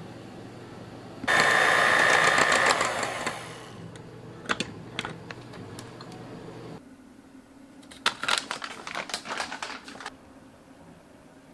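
Electric hand mixer with a steady low motor hum and a loud rattling clatter of its beaters for about two seconds near the start. The hum stops a little past halfway, followed by scattered clicks and clinks of handling.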